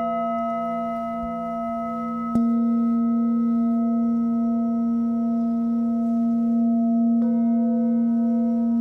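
Tibetan singing bowls struck with a felt mallet and left ringing, several long steady tones overlapping. A fresh strike about two seconds in makes the ring louder, and a softer strike comes about seven seconds in.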